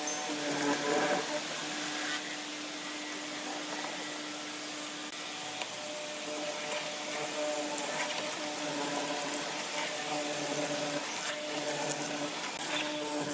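Benchtop hollow-chisel mortiser running with a steady motor hum. Its chisel and auger bit cut into the wooden beam in the first couple of seconds and again near the end, with the motor running on its own in between.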